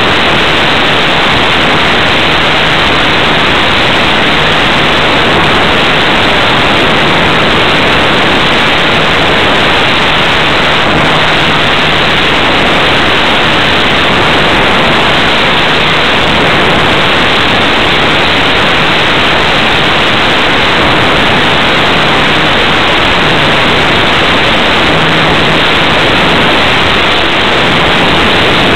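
Loud, steady rush of wind and airflow on the onboard microphone of a flying radio-controlled model airplane, with a faint low hum that comes and goes underneath.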